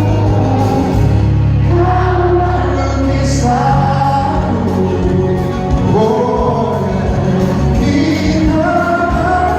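Live concert music: a band playing a pop song with singing over held bass notes, with several voices together.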